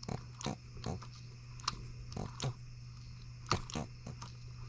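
Irregular light clicks and taps of hands working the brass flywheel hub of a scale-model Atkinson engine, over a steady low hum.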